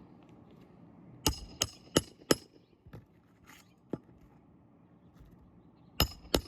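Hammer blows on metal, as when driving roofing nails into asphalt shingles, each strike ringing briefly. There are four quick strikes about a second in, a single one near the middle, and two more near the end.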